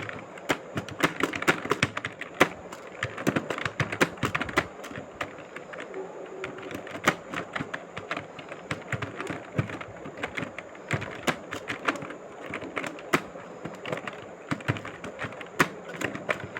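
Continuous typing on a mobile phone's on-screen keyboard: quick, irregular clicking taps, several a second, in a Remington Gail Hindi layout typing exercise.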